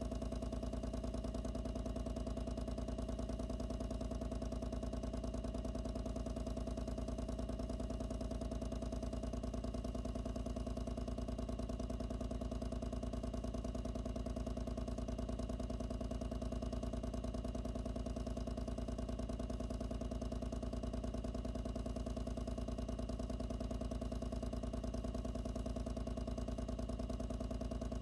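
Pump running steadily, a loud continuous hum with a fast, even pulse, heard close up from a microphone inside its enclosure. One higher tone in the hum weakens about nine seconds in.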